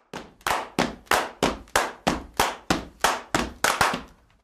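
A steady run of sharp percussive hits, about three a second, each with a short fading tail, stopping just before the end.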